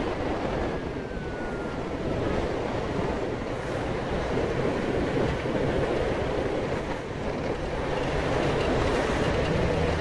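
Wind rushing over the microphone of a moving motorcycle, with steady engine and road noise underneath.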